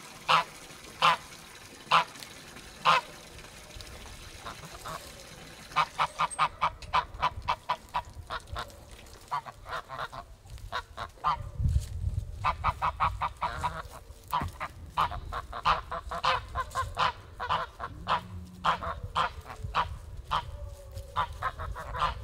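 Sebastopol geese honking: a few single honks about a second apart, then from about six seconds in a fast, continuous run of honks from several birds.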